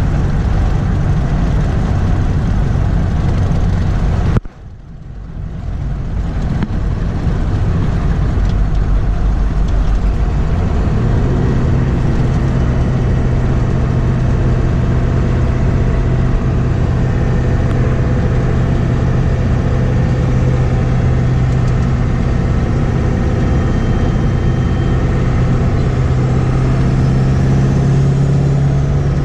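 Ford 7.3 Powerstroke turbo-diesel V8 running on a drive, fitted with 160/30 injectors. The sound drops away sharply about four seconds in and builds back over a couple of seconds. From about eleven seconds the engine settles into a steady, even drone.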